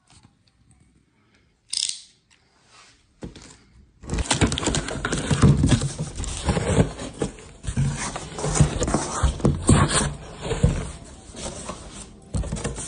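A cardboard box being opened by hand: a brief cut or rip through packing tape about two seconds in, then a long spell of dense rustling, scraping and bumping of cardboard flaps and packaging that eases off near the end.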